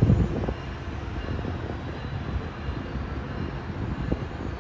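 Metrolink commuter train rolling away along the station tracks: a low rumble with a few short clanks from the wheels, loudest at the start and slowly fading.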